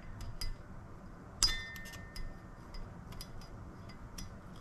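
Metal pick clicking and scraping against a brake caliper while prying out the old ring seal from its bore: scattered light clinks, one sharper clink with a brief ring about a second and a half in.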